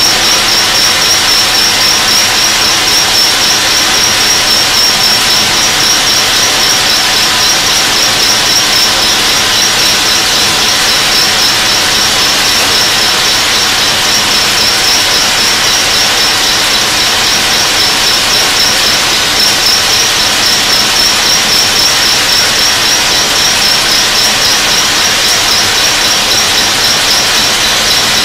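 Burgsmüller L5.4 thread whirling head cutting the profile of a metal screw element: the cutting inserts on the spinning whirling ring chip metal from the workpiece in a steady, loud, high-pitched whine over a hiss of cutting.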